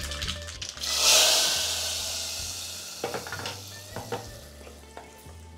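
Hot tempering of groundnut oil with mustard seeds, urad dal and cumin poured from a tempering ladle into the wet aviyal. It sizzles loudly about a second in, then the sizzle dies away over a few seconds. Near the end come a few light knocks as it is stirred in with a wooden spoon.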